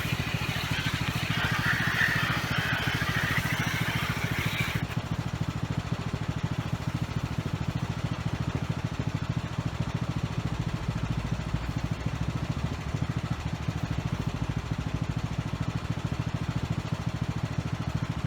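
A small engine running steadily with a fast, even pulse. A higher hiss rides over it for the first five seconds and then stops abruptly.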